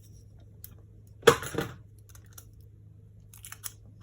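A short crinkling, crackly rustle about a second in, then a few light clicks near the end: a piece of Kapton tape being handled, torn and pressed down.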